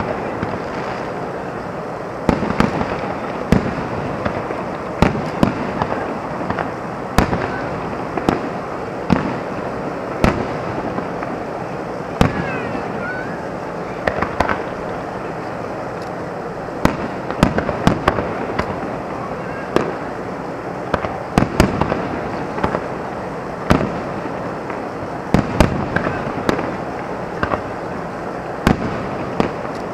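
Aerial fireworks shells bursting in a long irregular string of sharp booms, one every second or two, over steady background noise.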